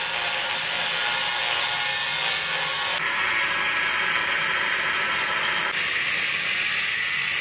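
Angle grinder with a cut-off disc cutting through a steel pole, a loud, steady grinding hiss. Its tone shifts abruptly twice, about three seconds in and near six seconds.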